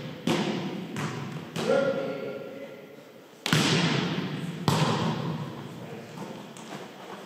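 A volleyball being struck back and forth in a rally, four sharp hits each trailing a long echo off the gym walls.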